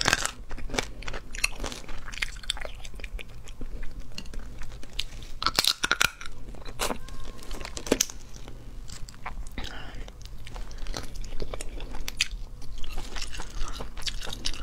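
Close-up crunching and crackling of cooked shrimp shells being cracked apart by hand and chewed: a steady run of sharp cracks and clicks.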